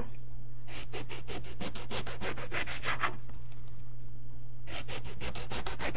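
Kitchen knife sawing back and forth through a whole eggplant, cutting it into quarter-inch slices: a run of quick rasping strokes, about five a second, then a pause of a second or so, then more strokes near the end. A steady low hum runs underneath.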